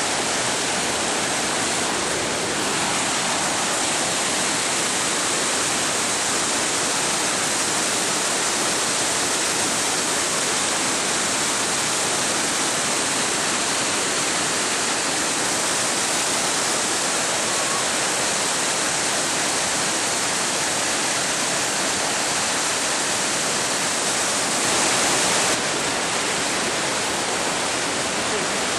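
Whitewater river rapids rushing steadily: a constant even noise of churning water, briefly a little louder near the end.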